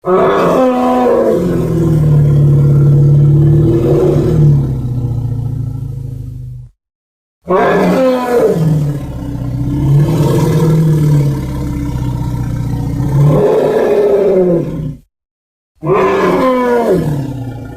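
Sound-effect roars of a large ceratopsid dinosaur such as Triceratops: three long, deep calls with short silences between them. Each opens with falling pitch glides over a steady low tone.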